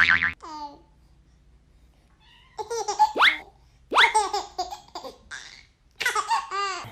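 A baby laughing in several short bursts of giggles, starting about two and a half seconds in, after a brief loud squeal at the very start.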